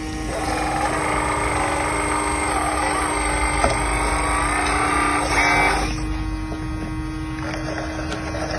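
Motors of a radio-controlled construction model running under a steady hum, busier and louder for the first six seconds, with whines that waver up and down, then easing off.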